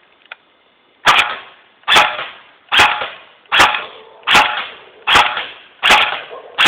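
JG M16A4 airsoft electric rifle firing single shots on semi-automatic: seven shots about 0.8 s apart, each a sharp crack that trails off briefly.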